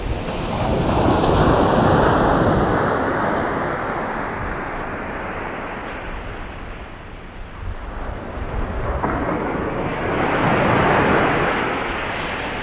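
Sea waves breaking and washing on the shore. The surf swells up about two seconds in, fades in the middle and builds again near the end, over a steady low rumble.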